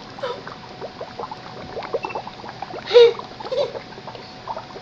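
Dry ice bubbling and fizzing in liquid inside a volcano cake: a steady run of small irregular pops and gurgles, with one louder burst about three seconds in.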